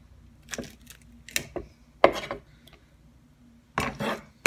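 A kitchen knife cutting the fins off a whole fish on a wooden cutting board: a series of sharp cuts and knocks of the blade against the board, the loudest about two seconds in, with a quick cluster near the end.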